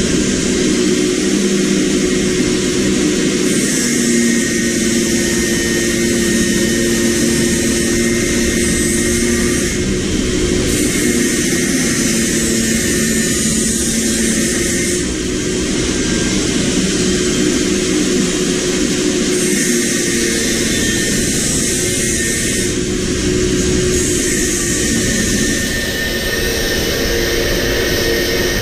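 Steady, loud machine noise with a constant low hum, a motor running continuously.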